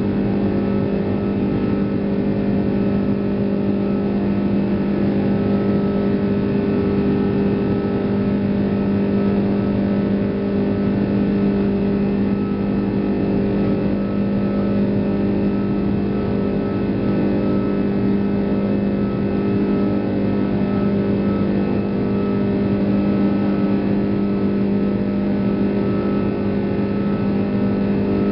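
Airbus A340-600's Rolls-Royce Trent 500 turbofans at climb power after takeoff, heard inside the cabin as a loud, steady drone with a few held tones.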